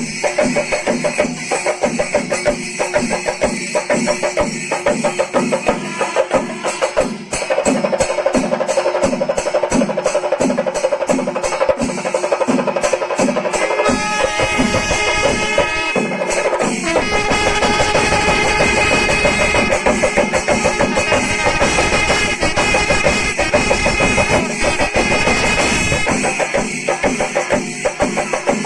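Kerala temple melam: chenda drums beating a fast, even rhythm under clashing ilathalam cymbals. From about halfway, long held pitched tones join the drumming for some twelve seconds, then drop away and the drums carry on alone.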